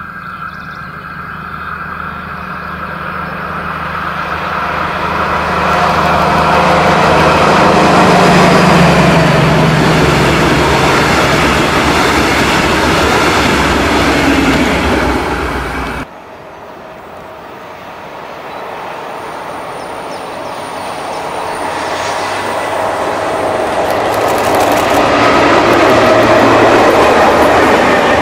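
Class 218 diesel-hydraulic locomotive approaching and passing with its engine running loudly, the engine pitch dropping as it goes by. After an abrupt cut, a second train approaches, its engine and wheel noise building up near the end.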